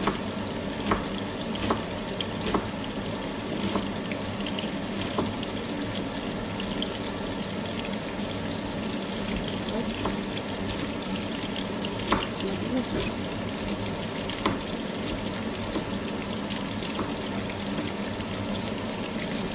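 Food sizzling steadily in a hot frying pan, with a knife tapping on a wooden cutting board every so often as something is chopped.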